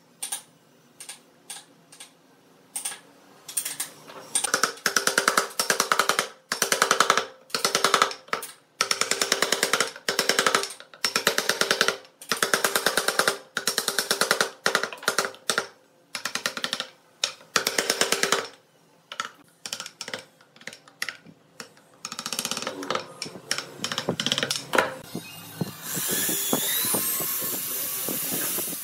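A wood chisel is struck in bursts of quick repeated blows, chopping into wooden blocks on a board. Near the end, a corded electric drill runs steadily, boring into the wood.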